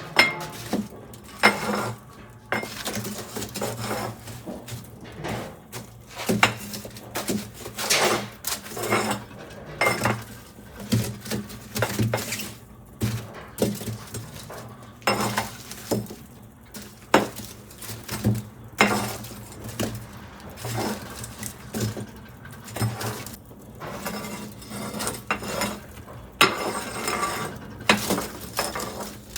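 Metal clinking and clattering, many irregular knocks a few at a time, over a low steady hum.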